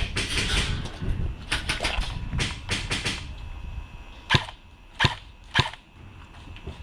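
Airsoft guns firing: a scatter of sharp snaps in the first three seconds, then three louder single shots a little under a second apart.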